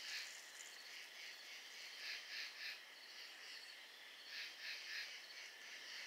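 Faint chorus of night insects, crickets, chirping in short pulses a few times a second.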